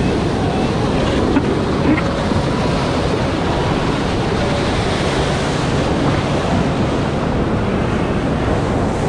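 Loud, steady rush of a Citywave machine-made standing wave: pumped water pouring down the pool's ramp and churning into whitewater close around the rider, with wind buffeting the microphone.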